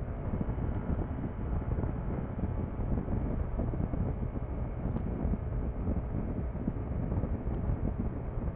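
Yamaha NMAX single-cylinder CVT scooter cruising steadily at about 95 km/h, its engine drone blended with a heavy rush of wind on the microphone.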